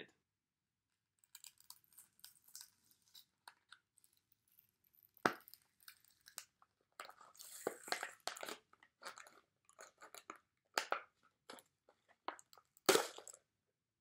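A Pringles can being opened: faint crinkling and scraping of the lid and foil seal, with a sharp snap about five seconds in and a louder one near the end.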